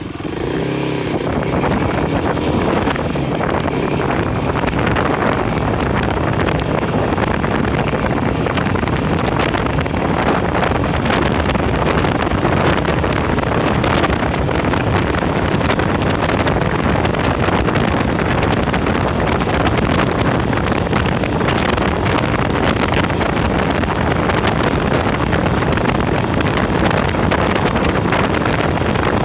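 A vehicle driving steadily along a road, its engine and road noise mixed with wind buffeting the microphone.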